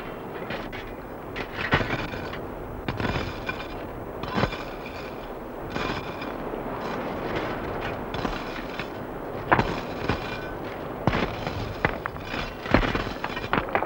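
A run of irregular sharp bangs and cracks over a steady noisy background, the strongest few seconds apart.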